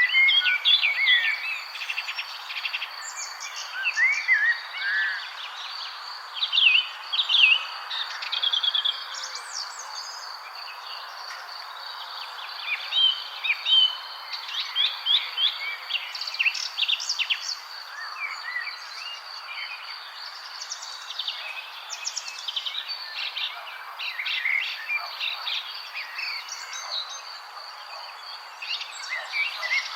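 Several songbirds chirping and singing in short, overlapping phrases, with quick rising and falling whistles. Beneath them run a steady high-pitched thin tone and an even background hiss.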